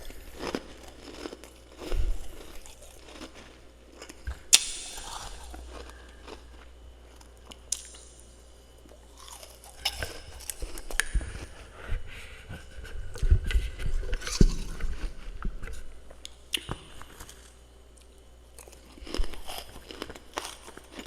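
Freezer frost being bitten and chewed: crisp, irregular crunches in clusters, with a few sharp single cracks.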